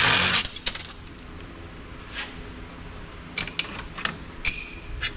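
Metal clicking and clinking from tools and parts being handled inside a large copier's sheet-metal frame during disassembly. It opens with a loud half-second rush of noise, followed by scattered short clicks.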